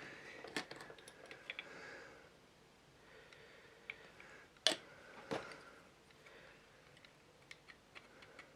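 Faint, scattered clicks and taps of small plastic model-kit parts and tools being handled on a workbench, with two sharper taps about halfway through.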